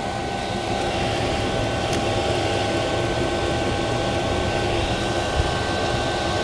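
Chinese diesel air heater running at full power with the burner lit: its blower fan spins fast with a steady whine of a few tones over a rush of air, growing slightly louder in the first second.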